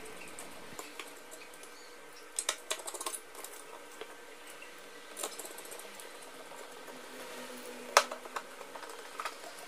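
Small clicks and knocks of plastic and metal parts being handled as a flat iron is put back together, with a cluster of light clicks about two and a half seconds in and one sharp click near the end.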